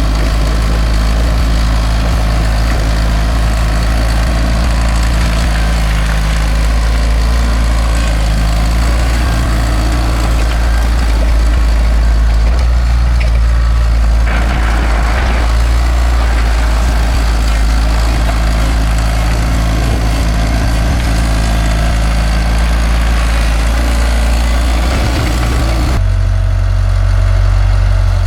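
Cat D4 bulldozer's diesel engine running steadily and loudly. About two seconds before the end the sound switches abruptly to a smoother, deeper drone.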